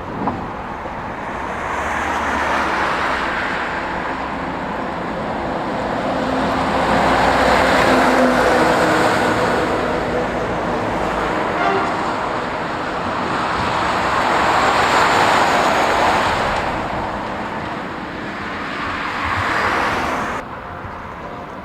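Road traffic passing: several vehicles go by one after another, each rising and fading away with tyre and engine noise. The sound drops off suddenly near the end.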